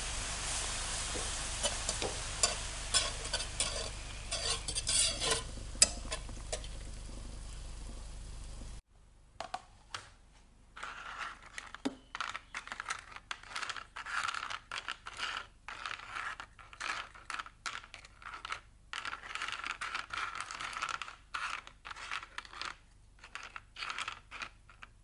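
Agar jelly syrup with goji berries at a hard rolling boil in a pot, a steady bubbling with sharp pops, stopping abruptly about nine seconds in. After that, soft silicone rose-shaped jelly moulds being handled and set down on a tray, with scattered light taps and rubbing.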